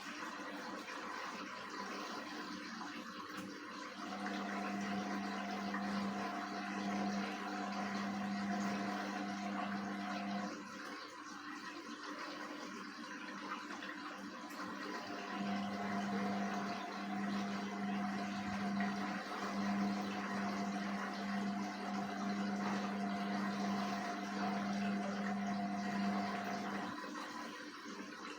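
Indesit WISN 101 front-loading washing machine on its rinse cycle: water rushes steadily in the drum while a motor hum runs for about six seconds, stops for about five, then runs again for about eleven seconds, the on-off pattern of the drum turning during the rinse.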